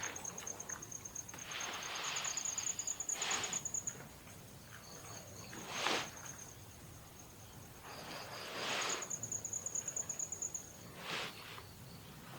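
An insect trilling steadily in a high, rapidly pulsed tone that pauses briefly twice. Short rustling noises come through it about every two to three seconds.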